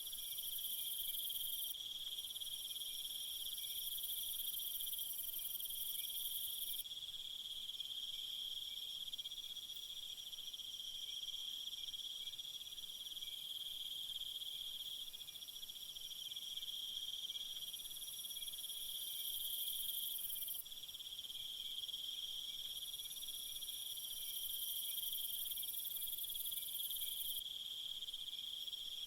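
Crickets chirring steadily in a continuous chorus, joined by a higher, hissing insect trill that switches on and off in stretches of a few seconds.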